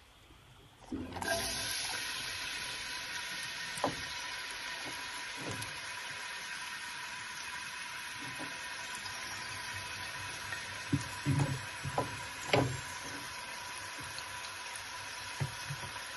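Diced red onion sizzling steadily in hot olive oil in a stainless steel pot, the sizzle starting about a second in as the onion hits the oil, with a few short clicks over it.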